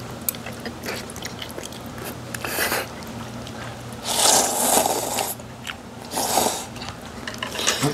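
Noodles slurped in three pulls: a short one about two and a half seconds in, a long loud one around four seconds in, and another just after six seconds, with small mouth clicks and chewing between them. A low steady hum runs underneath.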